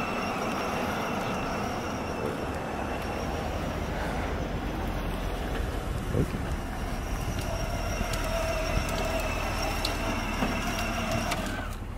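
Electric motor and gearbox of a kids' ride-on dirt bike whining steadily as the bike drives, then cutting off suddenly near the end as it stops.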